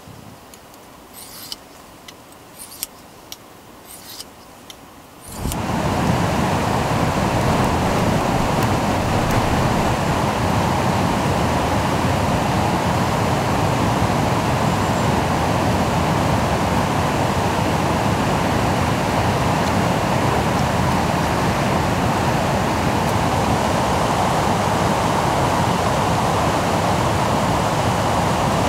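A few short scraping strokes of a knife on a handheld sharpening stone, then, from about five seconds in, the loud, steady rush of fast-flowing river water.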